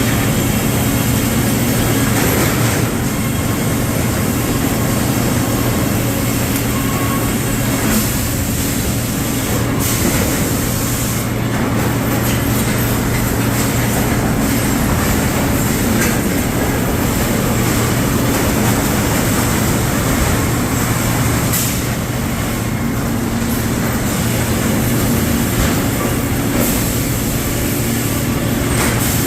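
Sawmill machinery running: a steady, loud mechanical drone with rattling and a few brief knocks.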